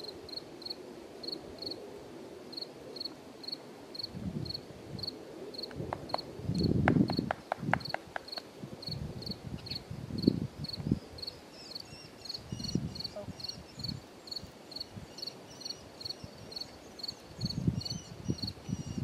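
An insect chirping steadily, short high chirps at about three a second, with a few soft low thumps and a quick run of clicks in between.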